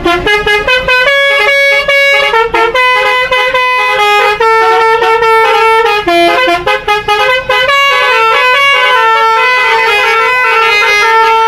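Telolet multi-tone bus horn played as a tune: a quick run of short notes, then longer held notes that step up and down in pitch.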